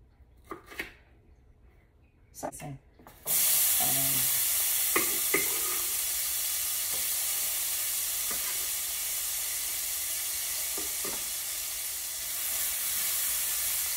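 A few faint clicks of handling, then about three seconds in a sudden loud sizzle as diced yellow bell pepper goes into hot olive oil and plant butter in a pan. The sizzle holds steady, with a few light taps of a utensil.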